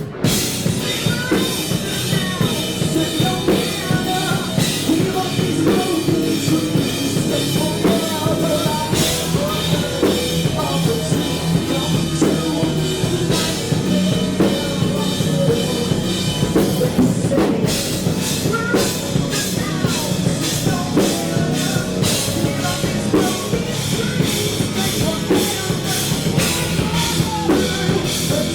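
Rock band playing live in a studio, the drum kit driving a steady beat under the band.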